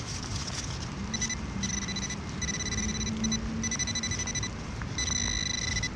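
Metal detector giving a high, steady target tone in several stretches broken by short gaps, with a lower hum underneath, as it is swept over the hole. The tone means the target is still there: the zinc penny has fallen back into the hole.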